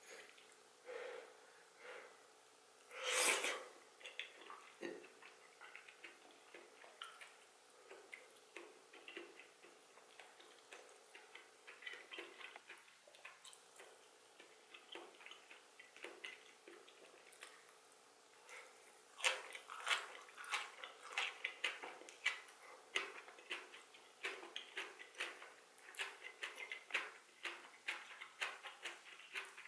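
Close-miked eating sounds: wet chewing of soup greens and bean sprouts, a stream of small moist clicks and smacks. A louder, noisy half-second burst comes about three seconds in, and the clicking grows denser and crisper in the last third.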